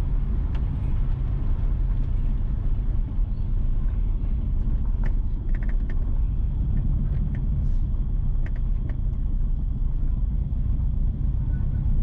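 Steady low rumble of a car driving slowly along a rough country road, engine and tyre noise heard from the vehicle. A few faint brief high sounds come through around the middle.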